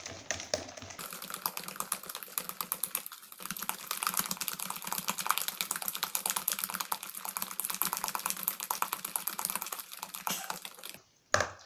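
Hand whisk beating eggs and sugar in a plastic bowl: a fast, even run of clicking strokes against the bowl, with a single sharp knock near the end.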